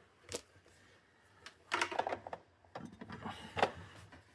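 Handling noise from rummaging about a workbench for a power cord: a click just after the start, then two spells of rustling and knocking, the second with a brief squeak or scrape.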